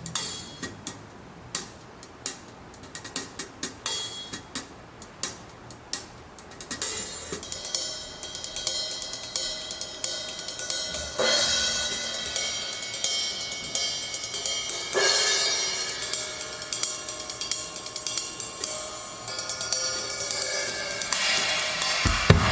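Drum kit playing a cymbal-led passage: crisp hi-hat ticks at first, then cymbals building into a shimmering wash with fresh strikes about 11 and 15 seconds in, and heavier drum hits coming back near the end.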